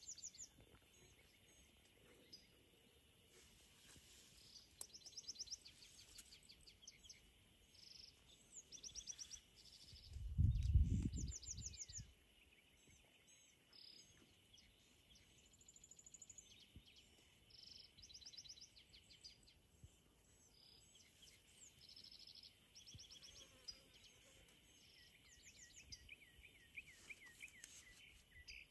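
Songbirds chirping and trilling in short repeated phrases throughout, over a faint steady high hiss. About ten seconds in, a brief low rumble on the microphone is the loudest sound.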